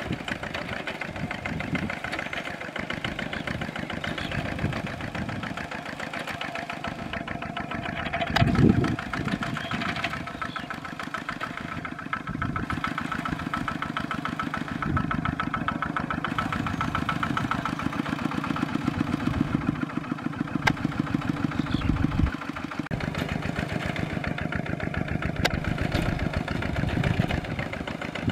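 Kubota RT140 walking tractor's single-cylinder diesel engine chugging steadily as it pulls a plow through a flooded rice paddy, with a brief louder surge about eight seconds in.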